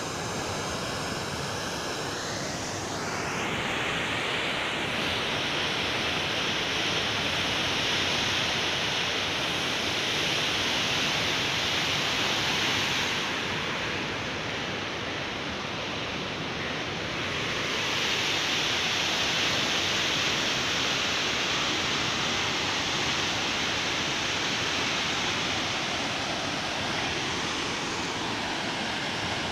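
Steady rushing of a flooded river running fast and high, swelling and easing a little over time.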